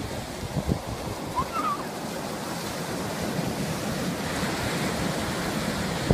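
Ocean surf breaking and washing up the beach in a steady rush, with wind buffeting the microphone in low, irregular thumps.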